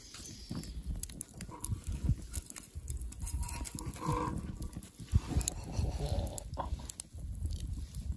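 Campfire crackling under a steel grill grate while a spatula scrapes under a burger patty and lifts it off, over a steady low rumble. About four seconds in there is a brief pitched sound.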